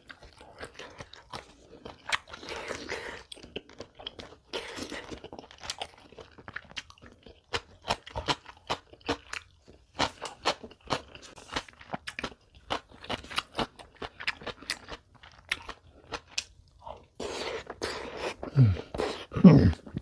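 Close-miked mukbang eating: repeated crisp crunches and chewing of crunchy food. Near the end come two short low sounds that fall in pitch.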